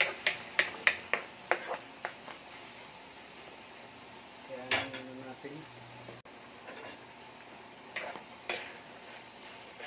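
Plastic spatula clacking and scraping against a frying pan while stirring frying food. There is a quick run of clacks in the first two seconds, a few more near the end, and a faint steady sizzle between.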